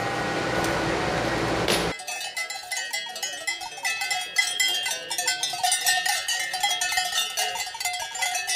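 Many cowbells clanging and ringing unevenly on a herd of walking cows. This follows about two seconds of steady rushing noise that cuts off suddenly.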